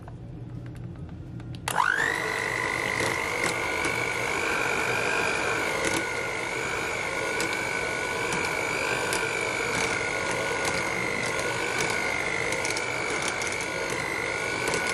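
Electric hand mixer switching on about two seconds in, its motor whine rising quickly to speed and then running steadily as the beaters mash boiled potatoes in a glass bowl, with a few light clicks.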